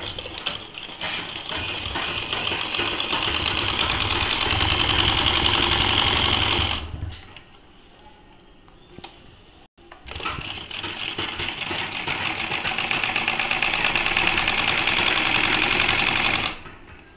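Domestic straight-stitch sewing machine stitching a folded bias strip into a tie cord, in two runs with a rapid, even rhythm. The first picks up speed and stops about seven seconds in. After a short pause the machine starts again about ten seconds in and runs until shortly before the end.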